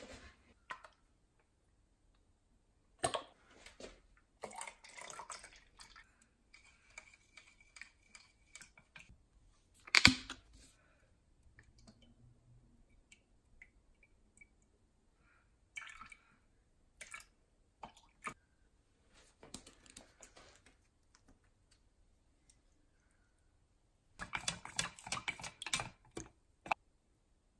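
Bottles and a plastic measuring jug being handled on a kitchen countertop: scattered knocks and clicks, with a louder knock about ten seconds in, and liquid being poured and dripping into the jug. Near the end, a wooden chopstick stirs the soap, oil and water mixture in the plastic jug with a quick run of clicks.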